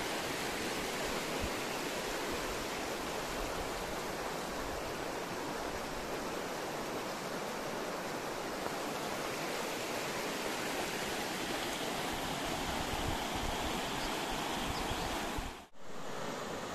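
Göksu stream's water rushing steadily. The sound drops out for a split second near the end, then carries on.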